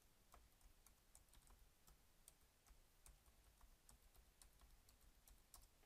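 Faint computer keyboard typing: irregular key clicks, several a second.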